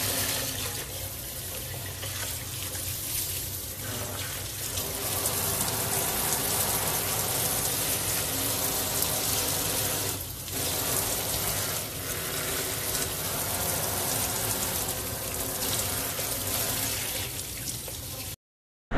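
Water spraying steadily from a pull-out faucet sprayer head onto a wet monkey and into the sink basin. It breaks off briefly about ten seconds in and cuts off shortly before the end.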